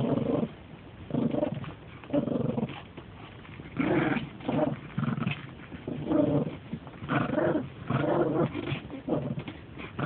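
A dog growling in play over a toy: a series of short growls, roughly one a second.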